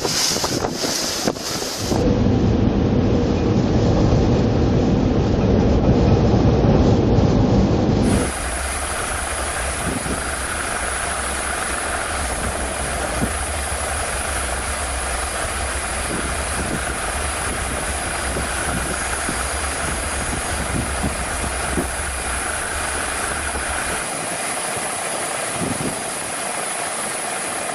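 Ship in heavy weather: a loud, low rumbling rush for several seconds, then a steadier hiss over a low hum with occasional knocks.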